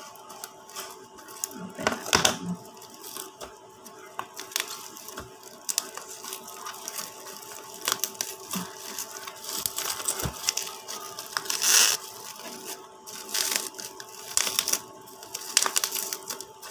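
Plastic packaging being cut with scissors and pulled open by hand, with irregular crinkling, crackling and tearing.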